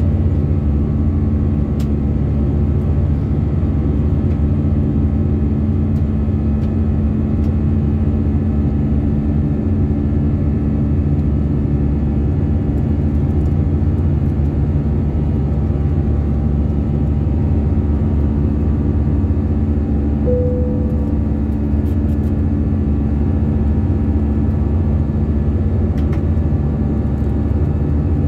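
Steady cabin roar of an Airbus A319-111 airliner in flight, heard from inside the passenger cabin: a constant low rumble of engine and airflow noise with a steady low hum. A brief short tone sounds about two-thirds of the way through.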